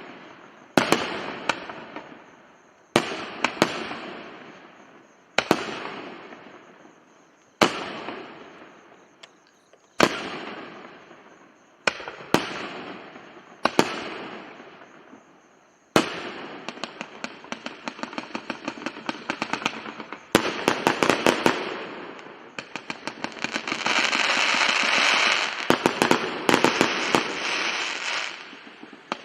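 Fireworks going off: single sharp bangs about every two seconds, each with a long echoing decay, then about halfway through a dense rapid crackling of many pops that swells to its loudest near the end.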